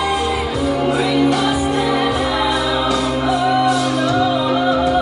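A song with a singer, played as the dance music for the routine. The sung line bends and wavers in pitch over the last second or two, and the low bass drops away about three and a half seconds in.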